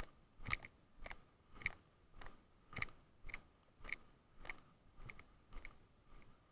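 Footsteps of a person walking, an even rhythm of sharp scuffing steps about twice a second.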